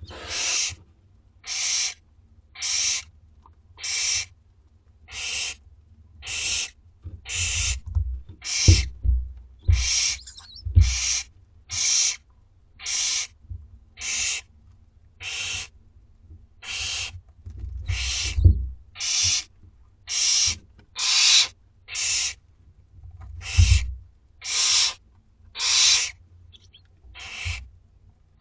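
Barn owl nestlings giving their rasping, hiss-like food-begging calls, about one a second without a break. A few low thumps come in between.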